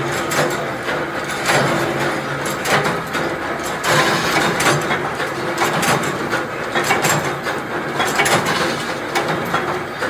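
Production machinery clattering steadily, with many quick irregular clicks and knocks of metal parts over a constant running noise.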